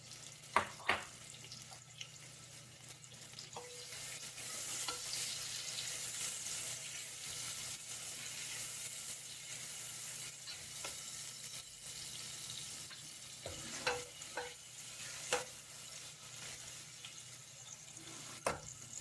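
Onions frying in hot oil in a pressure-cooker pot, a steady sizzle that grows louder a few seconds in, with the spoon knocking against the pot a few times as they are stirred.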